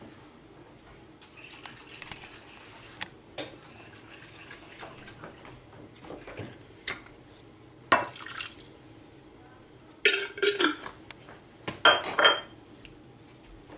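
Cooking utensils and cookware clinking and clattering. Scattered light clicks give way to louder bursts of clatter about eight, ten and twelve seconds in.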